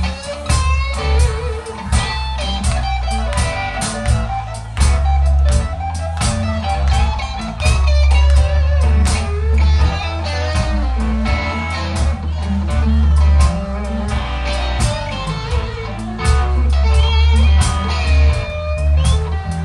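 Live rock band playing an instrumental passage: electric guitars over bass and drums with a steady beat.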